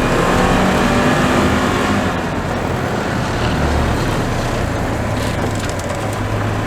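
Polaris Ranger XP 1000 side-by-side driving, its engine running under load with a steady note that shifts slightly in the first two seconds, mixed with wind noise on the microphone.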